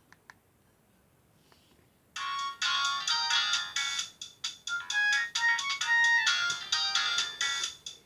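Two faint clicks, then about two seconds in a Nokia 5030c-2 mobile phone starts playing a ringtone melody of quick, short notes.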